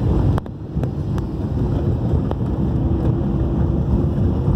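Low, steady rumble of an old car driving over a patched, rough asphalt road, heard from inside the cabin, with a few light knocks in the first second or so.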